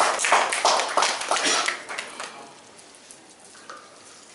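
A small audience applauding, with dense patter of clapping that dies away after about two seconds and leaves only low room noise.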